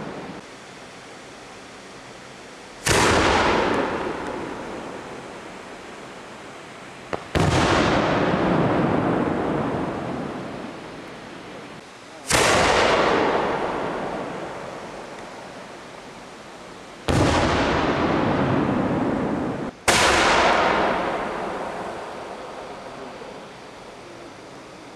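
Homemade firework shells going off: five sharp, loud bangs a few seconds apart, each followed by a long echo that rolls away over several seconds.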